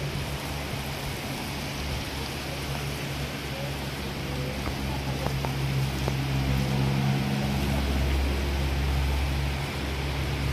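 A steady low motor hum under a constant hiss like spraying water, growing a little louder about five seconds in.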